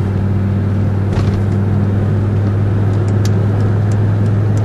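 Mercedes-Benz 300D 2.5's five-cylinder diesel engine running smoothly at highway speed, heard from inside the cabin as a steady low drone under road and wind noise.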